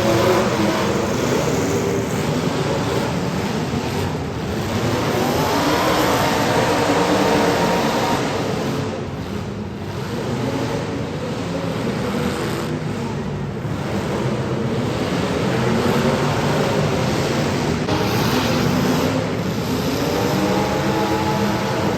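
Several demolition derby car engines running together, revving up and down so that their pitches rise and fall over one another.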